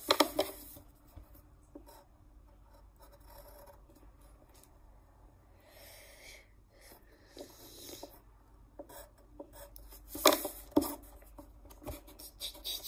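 A drawing tool scratching on paper in short, irregular strokes. The scratching is loudest right at the start and again about ten seconds in.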